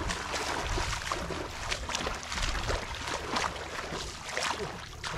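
Feet wading through shallow, muddy paddy water, each step a splash, about two a second in an uneven rhythm.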